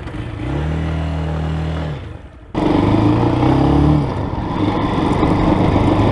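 Braaap ST250 motorcycle's 250cc engine revving up, holding briefly, then dropping back. About two and a half seconds in, the bike is under way with wind noise, the engine climbing in pitch as it accelerates and dipping once near the four-second mark, as at a gear change.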